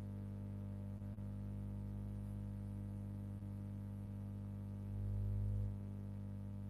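A steady low hum, with a brief low rumble swelling up about five seconds in.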